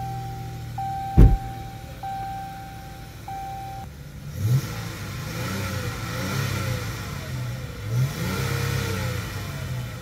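Car running, heard from inside, with a warning chime sounding in long, evenly repeated beeps. A single loud thump comes about a second in, the chime stops about four seconds in, and the engine then rises in pitch as the car pulls away and accelerates.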